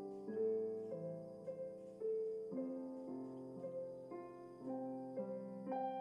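Soft piano background music, a slow melody with new notes and chords sounding about every half second.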